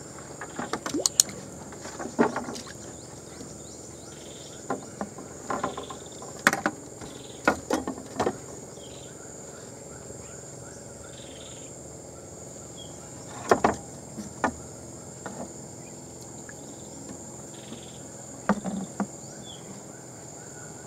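Steady high-pitched insect drone, with a dozen scattered sharp clicks and knocks from handling, the loudest clusters about 2 s, 6–8 s and 13.5 s in.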